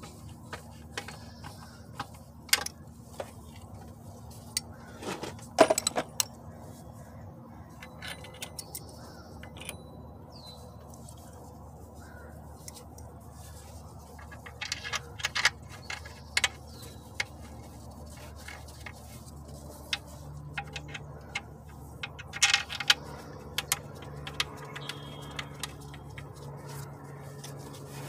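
Scattered metallic clinks and rattles of hand tools and parts being handled, the loudest cluster about five seconds in and more in the second half, over a steady low hum.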